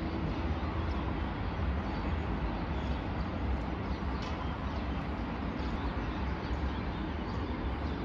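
Steady, distant city traffic hum from a high-rise view, with a few faint bird chirps.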